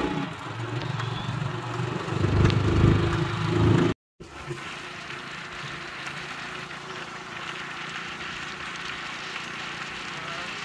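Motor vehicle engine running, loud for the first four seconds and loudest two to three seconds in. After a sudden cut, a quieter steady hum continues.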